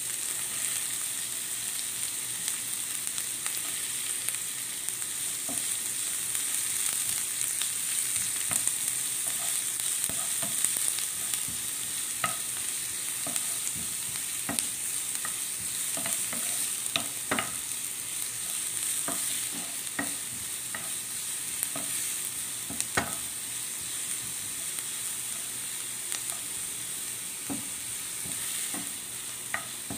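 Chopped onion and garlic sizzling in oil in a nonstick frying pan, a steady hiss, with a wooden spoon scraping and clicking against the pan as it is stirred.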